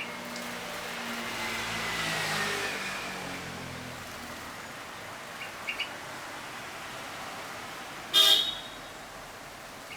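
A motor vehicle passes by, its engine pitch sliding down as it goes past. A few brief high bird chirps follow, and then about eight seconds in comes a single short vehicle horn honk, the loudest sound.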